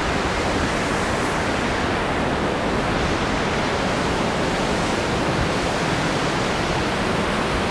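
Large waterfall running at high water: a steady, loud, dense rush of falling water with no breaks.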